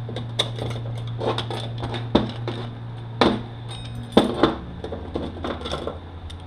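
Metal parts of a Mercedes 722.9 automatic transmission clinking and knocking as they are handled during teardown, a run of sharp separate knocks over a steady low hum.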